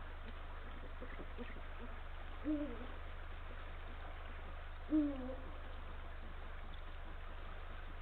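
Eurasian eagle owl hooting: two short, deep hoots about two and a half seconds apart, each dipping slightly in pitch. A steady low hum runs underneath.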